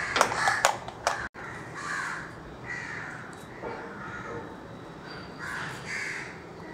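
Crows cawing several times in short, harsh calls, with a few sharp clicks in the first second.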